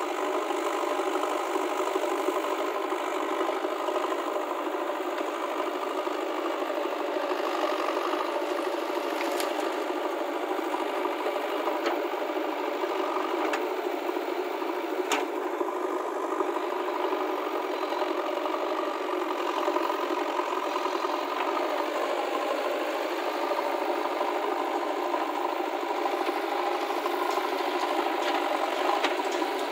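Diesel engines of a JCB 3DX backhoe loader and a Swaraj tractor running steadily while the backhoe digs and loads earth into the trolley, with a couple of sharp clicks near the middle.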